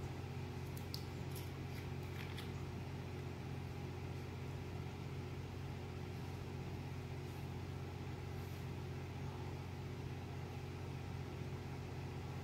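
Steady low electrical hum of reef aquarium pumps and equipment running. A few faint clicks in the first two seconds come from handling the glue bottle.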